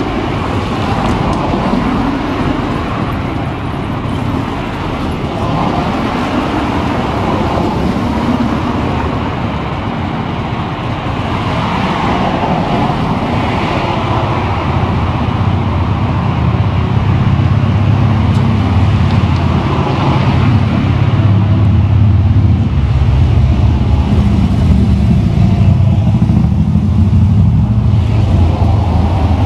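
City street traffic: cars running and passing, with a steady low hum that grows louder in the second half.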